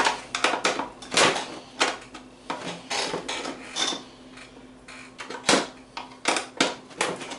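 Sealed steel ammo spam can being cut open with its supplied opener tool: irregular metallic clicks and scraping as the blade works around the lid, with a quieter lull about midway and a sharp click a little after.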